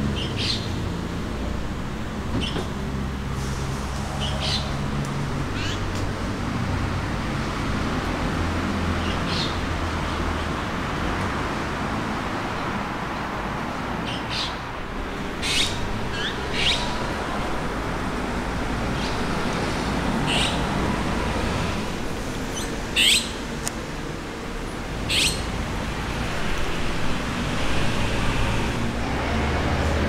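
Azure-winged magpies giving short calls now and then, some in quick pairs, over a steady low rumble of road traffic.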